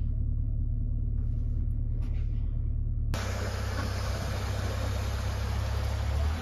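Peugeot 206 hatchback's engine idling steadily, heard from inside the cabin. About three seconds in the sound changes to the car heard from outside as it pulls slowly away, its low engine note under a steady hiss.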